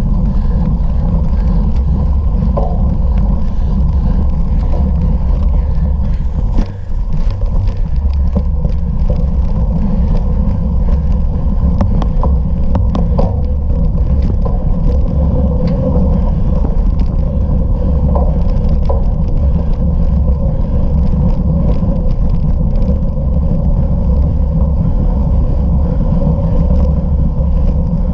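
Bicycle ridden at race pace: a steady rush of wind on the microphone over the rumble of the tyres, with scattered clicks and rattles and a brief drop in the noise about six and a half seconds in.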